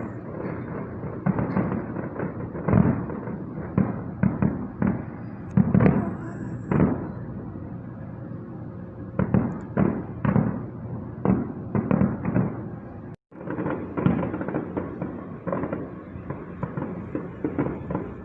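Fireworks display heard from a distance: a rapid, irregular string of bursts and bangs, with a short lull about halfway through and a brief dropout in the sound shortly after.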